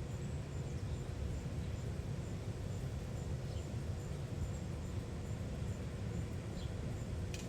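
Outdoor ambience: a steady low rumble, with a few faint high bird chirps and a faint high tick repeating about three times a second.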